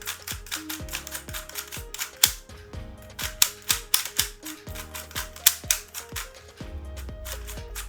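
MoYu magnetic speed cube being turned quickly in a scramble: a fast, irregular run of sharp plastic clicks as the layers snap round.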